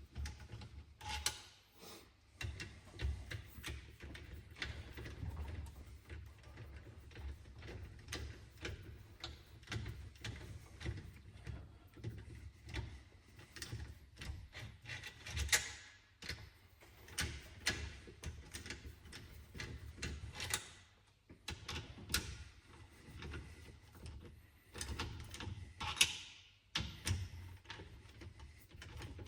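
Socket ratchet clicking in runs, with scattered metal knocks and clatter, as bolts are worked loose on an engine's bottom end.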